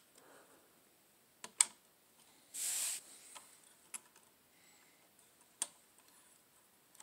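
Sparse, light metal clicks and taps of a screwdriver tip against a CPU cooler's mounting screws and bracket as they are lined up with the motherboard's screw holes. A short hiss comes about two and a half seconds in.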